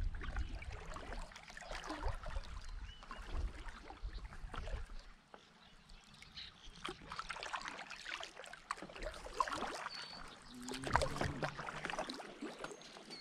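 Kayak paddle strokes: the blades dip, splash and drip water in an irregular patter as the kayak moves down a river.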